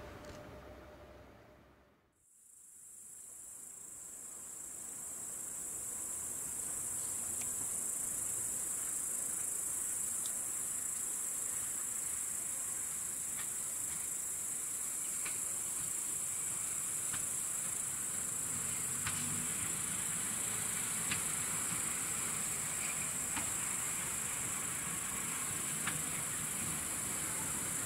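Crickets chirring steadily and high-pitched, fading in after a short dip about two seconds in. In the second half there is a faint low rumble from the class 810 railcar approaching in the distance.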